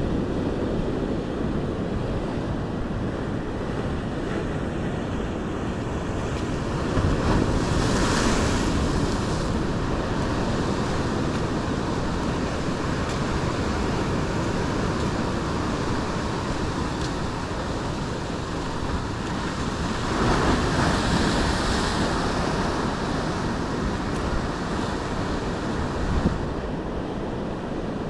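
Surf breaking over a rocky shore: a steady wash of sea, with a louder wave crashing about a quarter of the way in and another about two-thirds through. Wind buffets the microphone.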